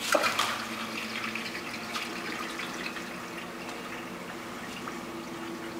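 Glass water wall fountain running: a steady sheet of water streaming down the glass and splashing into the bottom reservoir, a little louder for a moment at the start.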